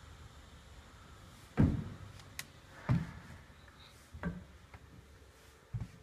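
Footsteps climbing the entry steps into a travel trailer: four heavy thuds roughly a second and a half apart, the first the loudest.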